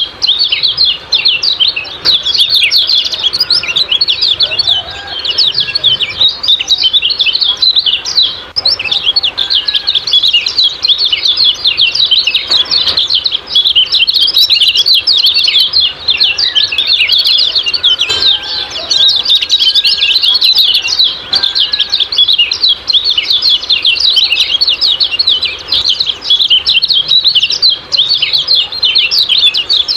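Kecial kuning (a white-eye) singing its rapid 'ciak-ciak' chatter: a dense, unbroken stream of quick high chirps.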